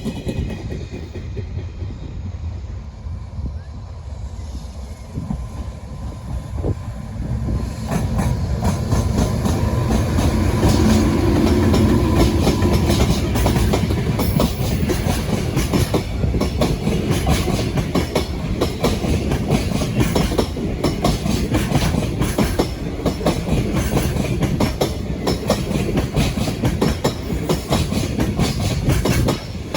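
A Japanese container freight train passing close by at speed, its wheels clattering rhythmically over the rail joints. It grows much louder about eight seconds in as the train arrives, with a brief hum as it comes level.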